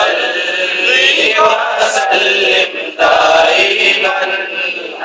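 A man singing an Urdu hamd, a devotional chant, into a handheld microphone in long held melodic phrases, with a short break about three seconds in.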